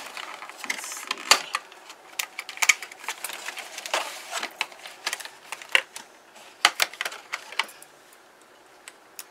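Small surgical scissors snipping the doll free of its box packaging: a run of sharp, irregular clicks and snips, with the cardboard box and clear plastic insert rustling as they are handled. The clicks thin out near the end.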